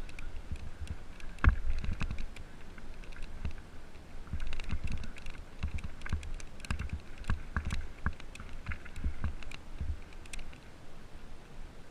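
Mountain bike riding fast down a gravel trail: the tyres crunch over loose stones while the bike rattles with many irregular clicks and knocks, over a constant low rumble.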